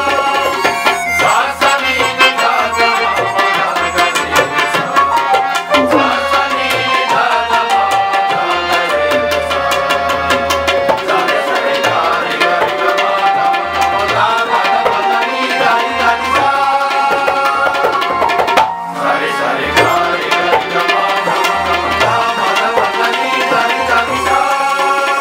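Tabla drums played in a dense, steady run of strokes under a continuous electronic keyboard melody, as accompaniment to a Punjabi masihi geet (Christian devotional song).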